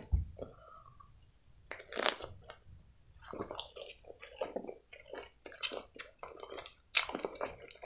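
A person chewing a mouthful of hot dog close to the microphone, with many short irregular wet mouth clicks.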